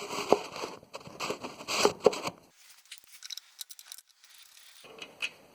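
Metal hand tools clinking and rattling as they are handled and rummaged through, a quick string of sharp clicks over about two and a half seconds, then only faint sound.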